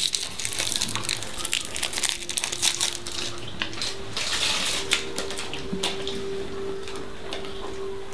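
Irregular crunching and crackling clicks, with a steady droning tone coming in about halfway through.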